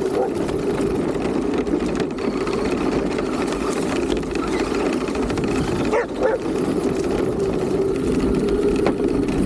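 RC car's motor and drivetrain running steadily as it drives over dirt and dry leaves, with a dog barking briefly about six seconds in.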